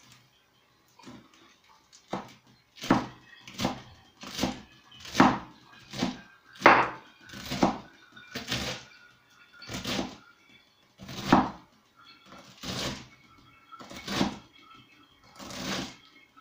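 Kitchen knife chopping a rolled bundle of fresh herbs on a wooden cutting board, in slow, slightly uneven strokes about one a second.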